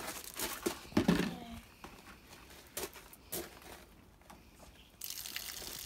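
An outdoor garden tap being worked, with a thump about a second in and a few small knocks and clicks, then water starts running from the tap with a steady hiss about five seconds in.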